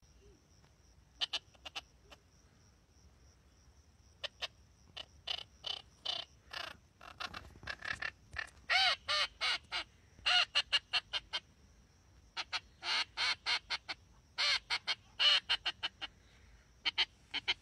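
Reyoka duck call blown by mouth, sounding runs of short quacks: a few scattered notes first, then faster strings of quacks with short pauses between them.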